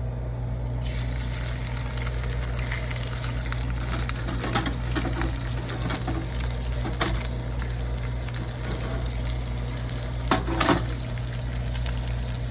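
Butterflied brown trout fillet sizzling in hot oil in a skillet. The sizzle starts about a second in and holds steady, with a few light clicks and a louder pair of clicks near the end, over a steady low hum.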